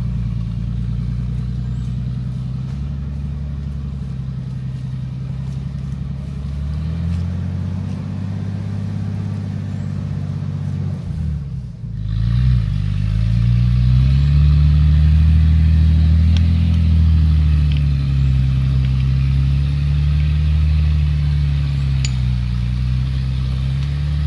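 Off-road 4x4's engine revving under load as it climbs a muddy track, the pitch swelling and sagging. The engine note drops away briefly about halfway through, then comes back louder and keeps revving up and down.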